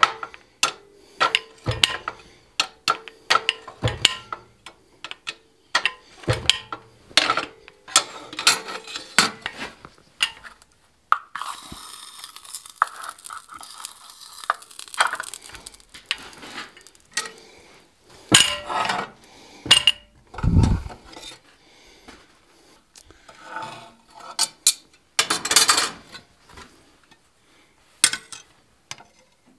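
Metal clanks and clinks of work at a hand-operated fly press: tongs and a hot iron bar knocking against the press tooling and fence as grooves are pressed into the bar's sides for a pineapple twist. The clanks come quickly, about one a second, at first. A few seconds of scraping and rattling come about halfway through, then a few louder clanks and a dull thump.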